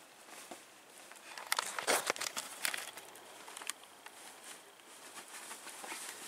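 Fleece blanket and quilted nylon sleeping bag rustling and crinkling as an Italian greyhound digs and turns to nest in its bedding, with a burst of sharper scratchy crinkles between about one and a half and four seconds in.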